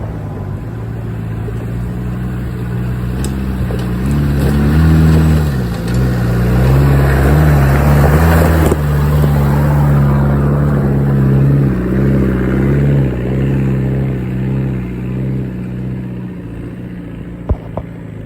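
Off-road 4x4's engine pulling under load, heard from inside the cab. Its revs rise about four seconds in, hold, and then ease back, with a rushing noise around eight seconds in.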